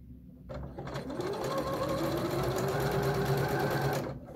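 Domestic sewing machine stitching bias binding: the motor winds up with a rising whine about a second in, runs steadily, and stops abruptly near the end.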